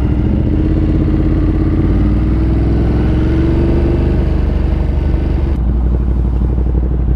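Yamaha R1M crossplane inline-four sport bike engine pulling away under throttle, its pitch rising slowly for about four seconds. The note then changes, and past five seconds it turns lower and duller.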